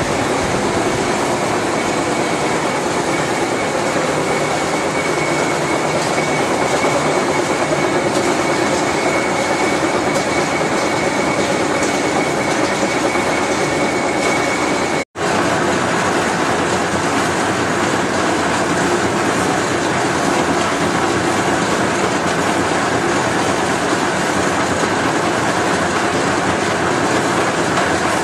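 Large horizontal spline and pinion gear hobber running under power: a steady mechanical rumble and rattle with a thin high whine. About halfway through the sound drops out for an instant, and the whine is lower after it.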